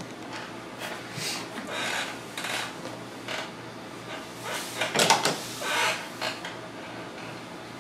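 A series of short rubbing and scraping handling noises, the loudest cluster about five seconds in.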